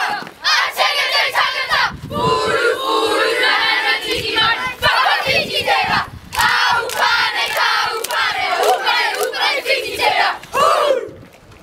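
A group of children chanting and shouting a haka in unison, in loud rhythmic bursts, breaking off near the end.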